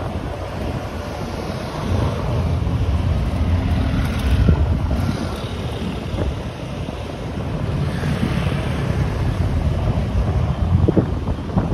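Steady low rumble of city street traffic with wind on the phone's microphone, swelling and easing as vehicles pass.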